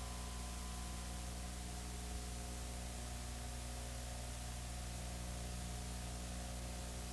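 Steady hiss with a low electrical hum and nothing else: the noise floor of a VHS tape transfer with no programme sound.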